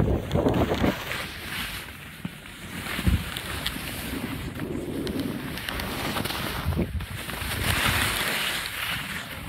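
Wind noise on the microphone of a skier's phone during a fast downhill run, mixed with skis scraping over chopped-up snow; loudest at the start and again near the end.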